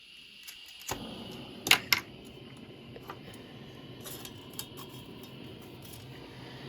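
A jeweller's gas torch comes on about a second in and burns with a steady hiss while warming silver wire. Two sharp clicks sound just before two seconds in.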